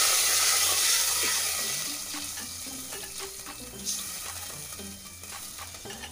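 Soaked rice dropped into hot ghee and cumin seeds in a pot: a loud sizzle that slowly dies down as the rice is stirred.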